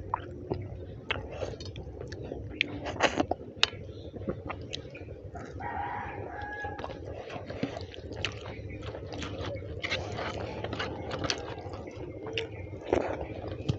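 Wet chewing and mouth clicks from eating rice and mutton curry by hand. About six seconds in, a rooster crows once, a call of about a second and a half rising to a held note.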